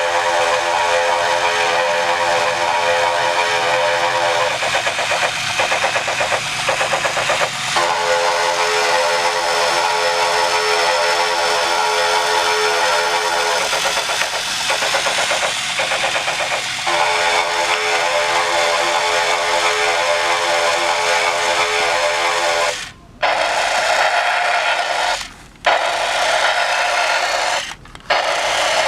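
Novelty B-17 bomber alarm clock playing its recorded propeller-engine drone through its small speaker: a steady hum over hiss, the hum twice fading out for a few seconds. Near the end the sound cuts out briefly three times.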